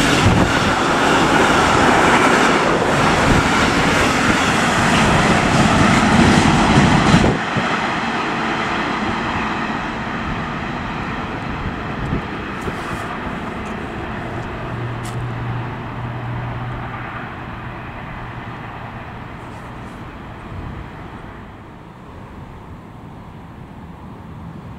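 Container freight train running through a station at speed, its wheels and wagons giving a loud rushing rail noise. The last wagon passes about seven seconds in: the noise drops abruptly, then fades away as the train recedes.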